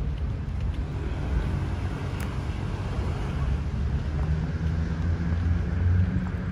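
Steady low background rumble, with a faint tick about two seconds in.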